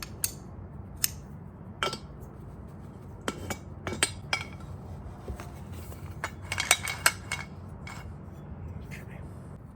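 Metal tools and saw parts clinking and tapping against each other, a dozen or so sharp, irregular knocks that bunch together a little after the middle, over a steady low hum.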